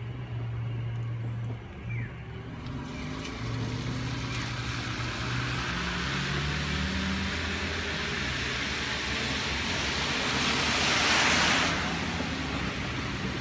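A car passing on a rain-wet road. The hiss of its tyres on the wet surface builds slowly, peaks near the end and falls away, over a low engine hum.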